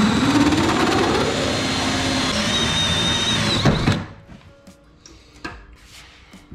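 Cordless drill with a hole saw spinning up and cutting through the boat's carpeted side panel, running steadily for about four seconds, then stopping abruptly. Faint knocks and rubbing follow as a plastic pipe is pushed into the freshly cut hole.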